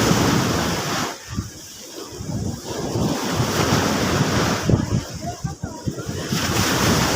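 Sea waves breaking and washing against the shore, swelling and falling back in several surges, with wind buffeting the microphone.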